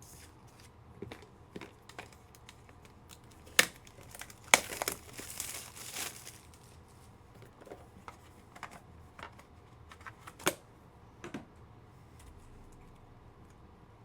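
Trading-card packaging being handled: plastic crinkling and a short tearing rustle about four to six seconds in, among scattered sharp plastic clicks and taps from cards and cases being set down.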